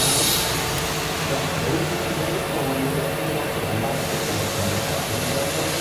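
Haas VF-6/40 vertical CNC machining center running with a steady mechanical hum and whir; a high hiss cuts out about half a second in.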